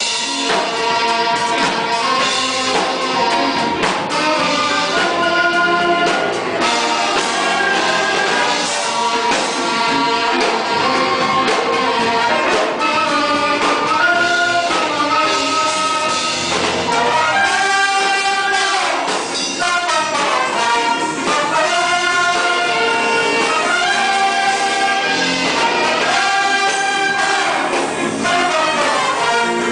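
Gospel orchestra playing, with brass (trumpets and trombones) carrying sustained melodic lines over the ensemble.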